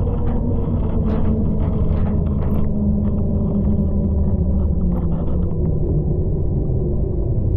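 Transit bus heard from inside the cabin: a steady low engine and drivetrain rumble with a faint whine that dips slightly in pitch. Short rattles and creaks of the body and fittings come in the first few seconds.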